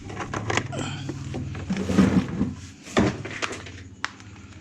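Parts of a scooter's body and seat compartment being handled during disassembly: shuffling and clatter with hard knocks about two and three seconds in, then a sharp click about four seconds in.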